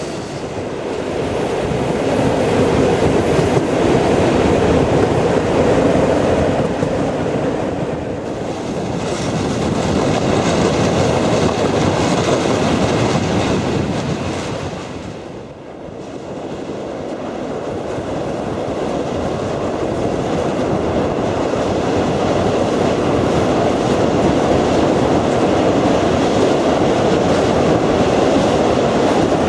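Passenger train running at speed, with a steady rumble of carriage wheels on the rails heard from the carriage window. The sound eases off briefly about halfway through, then builds up again.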